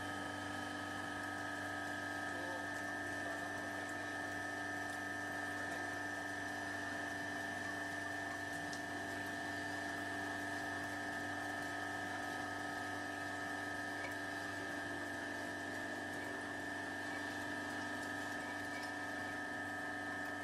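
Marine seawater flake ice machine running: a steady mechanical hum with several constant tones, while the scraper turns inside the evaporator drum.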